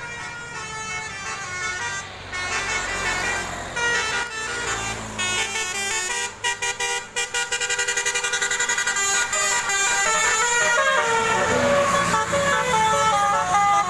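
Bus 'telolet' Basuri horn playing a melody of notes that jump from pitch to pitch. A fast, even pulsing runs through the middle, and near the end the notes step downward, over a low vehicle rumble.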